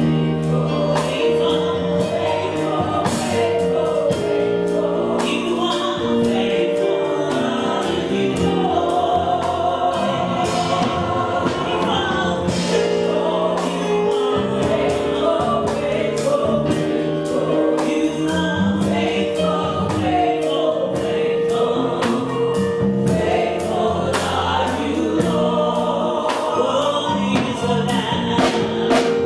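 Live gospel worship song: a choir singing long held notes over a band with a steady beat.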